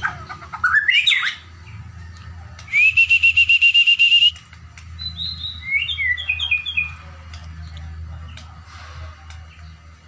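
A caged murai songbird singing: sweeping whistled notes in the first second, then a loud, fast trill of about a dozen repeated notes from about three seconds in, and a run of short falling notes around six seconds.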